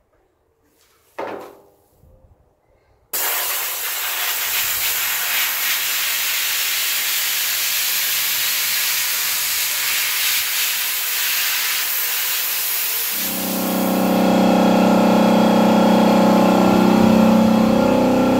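Sandblaster gun hissing steadily as it blasts abrasive at the truck cab's sheet metal, starting suddenly about three seconds in. About ten seconds later an air compressor starts running underneath it with a steady hum, straining to keep up with the blaster.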